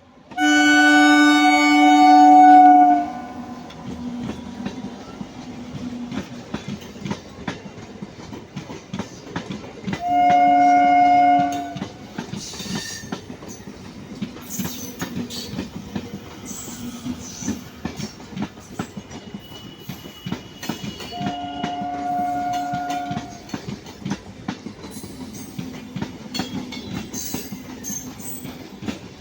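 Indian Railways train sounding its horn three times: a long blast of about two and a half seconds near the start, then two shorter blasts of about two seconds, roughly ten seconds apart. Under and between them run the steady clickety-clack of the wheels over rail joints and the rumble of the moving train.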